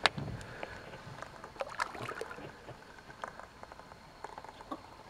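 Faint water lapping and light splashing as a fish held in a lip-grip is lowered into the water beside a small boat and let go. A sharp click at the very start, then scattered small clicks and knocks.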